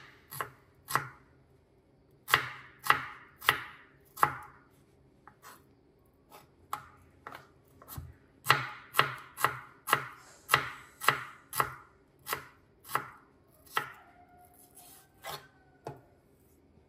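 Kitchen knife slicing an onion on a wooden end-grain cutting board: sharp knocks of the blade hitting the board, in runs of about two a second with short pauses between.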